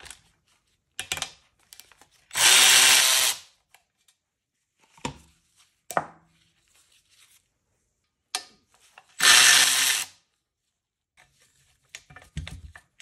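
Cordless electric ratchet spinning out T30 Torx bolts on a turbocharger's oil and coolant line fittings. It runs in two whirring bursts of about a second each, well apart. Short clicks and knocks of metal parts being handled fall between the bursts.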